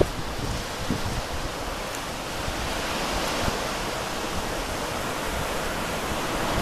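Ocean surf breaking and washing onto a beach: a steady rush of waves, with wind rumbling on the microphone.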